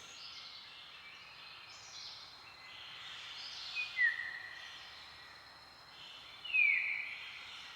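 Forest ambience, a steady high chorus of insects and birds, with a bird giving two descending whistled calls, one about four seconds in and a louder one about six and a half seconds in.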